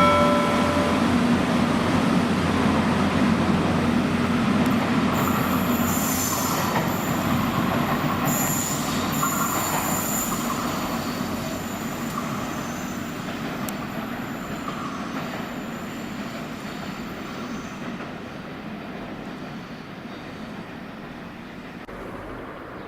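A train rumbling past on the rails and slowly fading away, with high wheel squeal from about six to ten seconds in. A short horn note ends just at the start.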